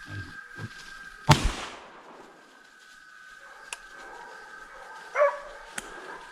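A single loud gunshot about a second in, dying away quickly. About five seconds in comes a short, high-pitched animal cry.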